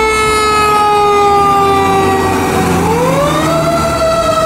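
Fire truck siren wailing: a single wavering tone that slowly falls in pitch, then swoops back up about three seconds in and holds.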